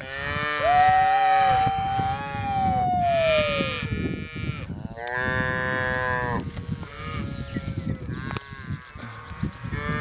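Beef calves and cows bawling, several calls overlapping in about three loud bouts over the first six seconds, with one long call sliding down in pitch, then fainter calls near the end.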